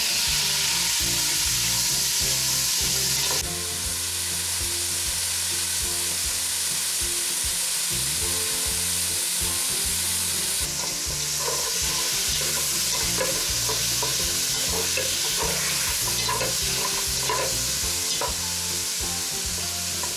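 Diced pork sizzling and frying in hot oil in a kazan with a steady hiss. From about halfway through, a spatula clacks and scrapes against the pot as the meat is stirred.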